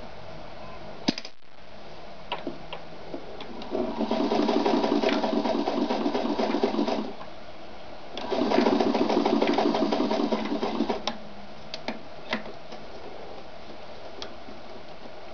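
Ideal 730 sewing machine stitching at speed in two runs of about three seconds each, with a pause between, and scattered light clicks and knocks before and after the runs.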